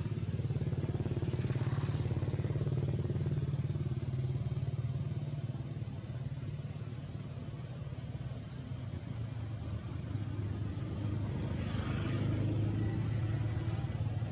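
A motor vehicle engine, likely a motorcycle, running with a low steady hum. It fades somewhat in the middle and grows louder again near the end.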